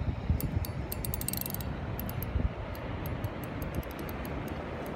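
Spinning reel clicking irregularly, with a quick run of clicks about a second and a half in, as a hard-pulling hooked fish takes line against the drag on a bent rod.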